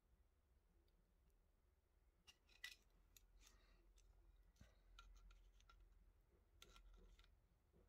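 Faint metallic clicks and scrapes of a steel digital caliper's sliding jaw being moved and closed against a knife's blade and handle, in two clusters of short clicks.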